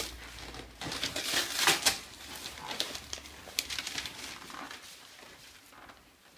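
A cardboard toy box and its paper and plastic packing being torn open and crinkled. There is a dense spell of rustling and crackling about a second in, then lighter, scattered rustles.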